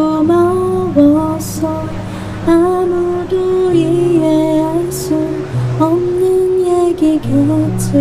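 A woman singing a slow, gentle song with long held notes, accompanying herself on acoustic guitar.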